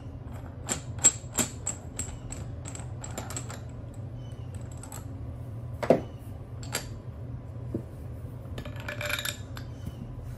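Metal parts of an aluminium uniball press tool clinking as it is unthreaded and lifted off a tubular upper control arm: a quick run of light clinks and taps in the first few seconds, then a louder knock about six seconds in as a part is set down on the bench. A brief rustle comes near the end, over a steady low hum.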